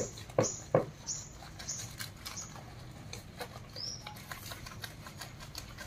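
Hands rubbing and squeezing thick shampoo lather into a wet Lhasa Apso's coat: wet squelching and squishing. The squishes come quickly in the first couple of seconds, then more sparsely.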